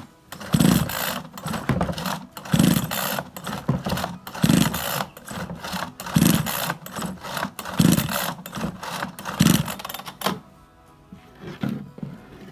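Recoil starter of a rusty Shindaiwa 685 two-stroke chainsaw pulled over and over, about seven strokes roughly every second and a half, each a rasping whirr as the engine turns over. No running engine note follows: the saw does not start.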